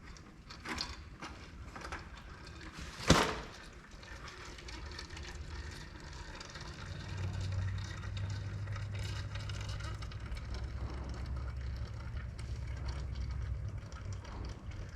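Hydraulic fluid pouring out of a Kubota L48 backhoe's rear housing into a bucket, with a sharp knock about three seconds in and a steady low rumble from about halfway through.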